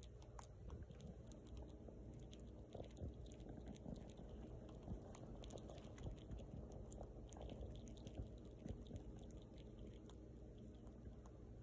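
A young fox squirrel chewing and gnawing on a piece of nut held in its paws: faint, rapid, irregular crunching clicks, with a few louder bites now and then.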